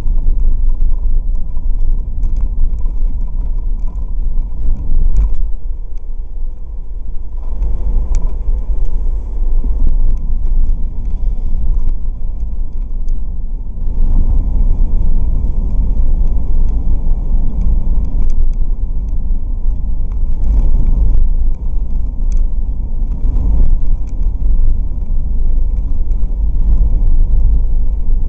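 Ford Escape V6 on the move, heard from inside the cabin as a steady low rumble of engine and road noise. It eases off briefly around six seconds in and grows fuller from about fourteen seconds on.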